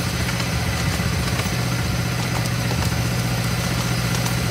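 Miniature railway diesel locomotive's engine running steadily as it hauls the passenger train, a steady low hum.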